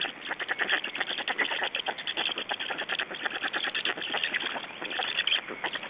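Black stork chicks begging for food at the nest while an adult feeds them: a continuous, fast, rasping chatter of many short notes, with a thin, telephone-like quality from the nest-camera microphone.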